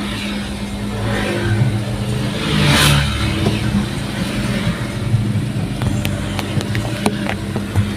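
Motor vehicle running, with a steady low engine hum and a rush of road noise that swells to a peak about three seconds in and fades, like a vehicle passing close; a few sharp clicks near the end.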